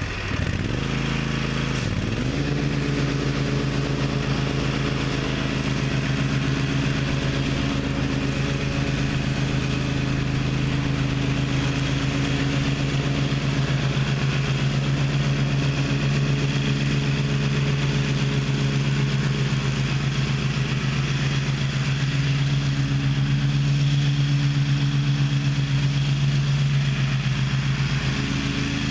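Gravely ZTX 42 zero-turn mower engine catching just after a start: its pitch dips and then climbs to speed in the first two seconds, then it runs steadily.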